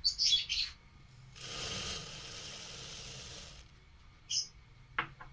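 Sugar being poured into a pot of simmering milk and vermicelli: a steady soft hiss lasting about two seconds, with a few short scrapes before and after and a couple of sharp clicks near the end.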